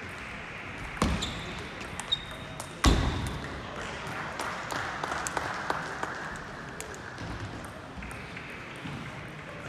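Table tennis balls clicking off bats and tables across a large hall full of play: scattered sharp ticks, with a louder knock about a second in and the loudest just before three seconds, over a steady murmur.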